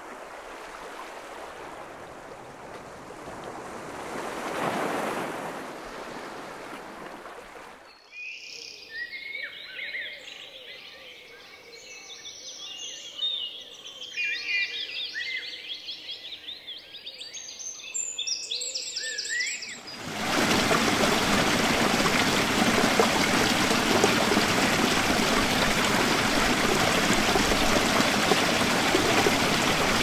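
Ocean waves washing, with one swell building and falling about five seconds in. Songbirds chirping and singing in quick short calls about eight seconds in. From about twenty seconds, a waterfall pouring into a pool, a steady, much louder rush of water.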